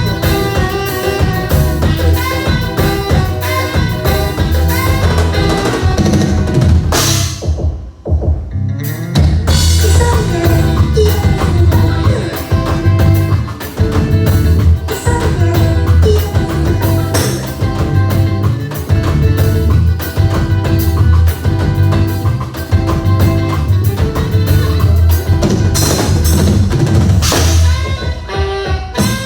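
Live band playing a forró xote groove, drum kit and a strong bass line driving it. About eight seconds in the band drops out for a moment, leaving only the low bass, then comes back in.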